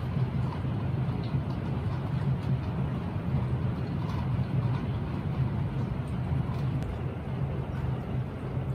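Very heavy downpour heard from inside a house: a steady, tremendous rushing of rain with a strong low rumble.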